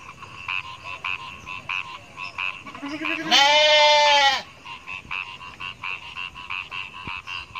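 A sheep bleats once, loud and drawn out for about a second, about halfway through. Behind it frogs croak steadily in an even rhythm, about two calls a second.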